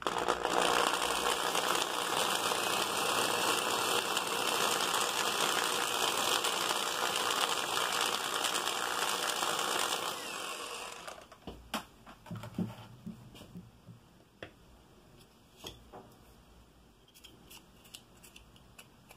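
Electric hand drill running steadily as its bit bores through a small plastic relay cover, stopping after about ten seconds. Then light clicks and taps of the plastic cover being handled.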